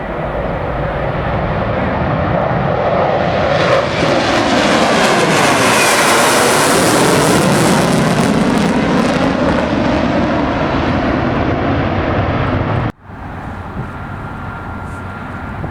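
Airliner engines passing close by, the noise swelling to a peak with a sweeping, shifting pitch and then easing off. About 13 seconds in it cuts abruptly to a quieter, steady engine sound.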